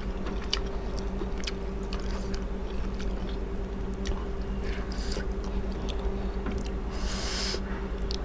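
Eating sounds: chewing, and a metal spoon clicking now and then against a ceramic soup bowl, with a brief hissy sound about seven seconds in. A steady low hum runs underneath.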